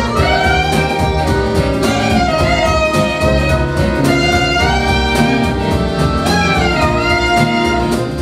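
Live jazz performance: a woman singing long, sliding held notes into a microphone over a small band with guitar and saxophone.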